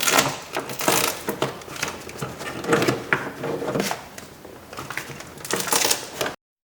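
Plastic water shield being peeled slowly off a car's inner door, crinkling and rustling in repeated bursts; the sound cuts off suddenly near the end.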